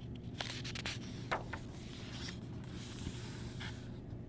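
Paper pages of a picture book being handled and turned: a few soft rustles and light taps, with a brief swish about three seconds in, over a faint steady hum.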